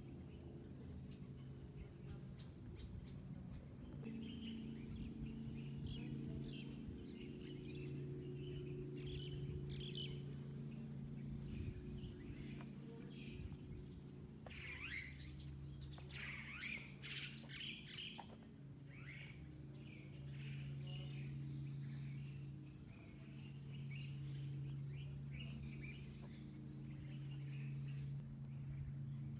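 Many small birds chirping and twittering in short calls and quick runs of chirps, over a low steady hum of several held tones that shifts every few seconds.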